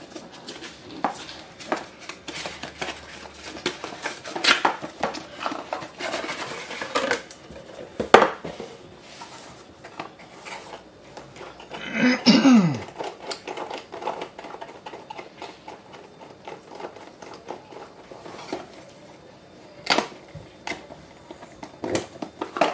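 Hands unpacking and handling a GoPro HERO8 Black camera and its plastic packaging on a tabletop: irregular rustling and scraping of plastic with scattered clicks and taps. A short falling tone comes about halfway through.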